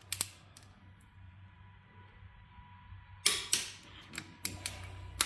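Torque wrench working on a cylinder head bolt: two sharp clicks just after the start, then after a quiet pause a loud click about three seconds in followed by a run of smaller clicks, as the wrench breaks at its torque setting and is ratcheted.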